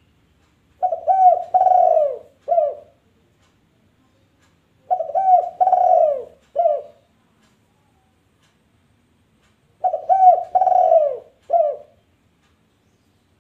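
Dove cooing: three calls about four and a half seconds apart, each a few short coos, then a long falling coo and a short final note.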